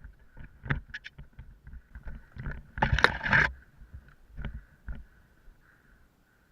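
Irregular crunching footsteps in snow and rustling of clothing and gear, with a louder scuffing rush about three seconds in.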